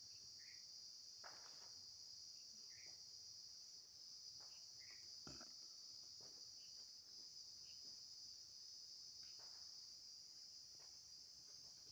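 Faint, steady chirring of crickets, with a few faint short chirps and soft knocks over it.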